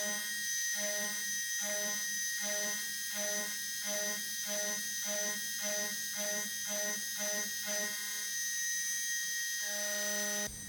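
Hobby CNC mill running, with a steady high spindle whine. Under it a motor tone pulses about two to three times a second, pauses briefly near the end, then resumes before the sound cuts off.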